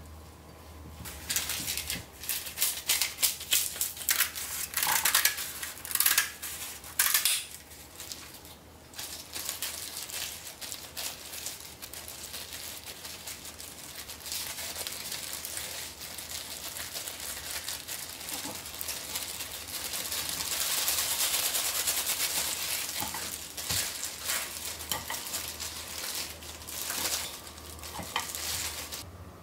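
Kitchen cooking sounds: a run of sharp clinks and knocks from utensils against dishes, then a steady hiss that grows louder about two-thirds of the way through.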